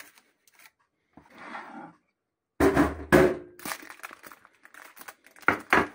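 A metal baking tray being shifted on a counter, with its baking parchment rustling. A faint rustle comes first. About three seconds in there are a couple of loud knocks, then light clicks, and two more sharp knocks near the end.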